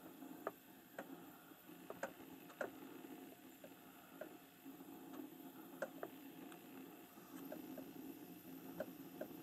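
Faint, irregular crackles and clicks of whitetail deer stepping through dry leaf litter, about a dozen over the stretch, above a steady quiet background hiss.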